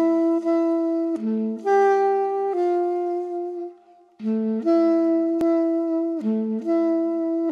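Solo saxophone playing a slow melody of long held notes, in two phrases with a short pause about four seconds in.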